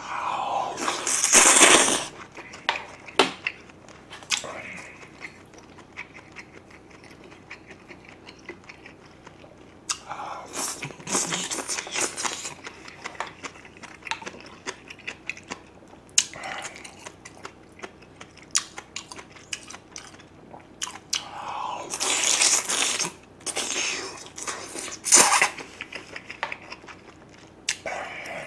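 Close-miked eating of seolleongtang with somyeon noodles. There is a loud slurp of noodles about a second in, then chewing with wet mouth noises and small spoon clicks, and two more long slurps of soup later on.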